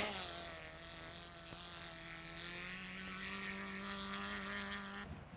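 A racing car engine running at steady revs: a fairly faint, even hum whose pitch creeps slightly upward, cut off abruptly near the end.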